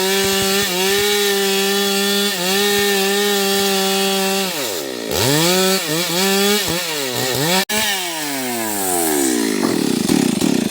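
Stihl MS 382 two-stroke chainsaw cutting wood at a steady full-throttle note. About halfway through, the engine note drops and then rises and falls repeatedly as the saw is revved.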